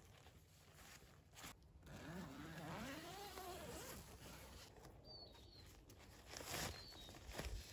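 Tent door zipper being pulled along its track about two seconds in, its buzz rising and falling in pitch as the pull speeds up and slows, with rustling of tent fabric around it.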